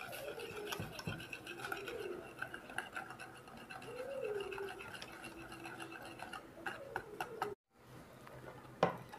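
Wire balloon whisk beating a runny egg, oil and sugar batter in a ceramic bowl: quick, fairly soft clicking and scraping strokes of the wires against the bowl, which break off briefly near the end.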